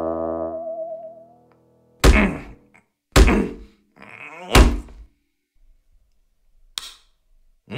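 A held, wavering music tone fades out in the first second and a half. Then come three heavy thunks about a second apart, each with a short ringing tail, and two faint clicks near the end.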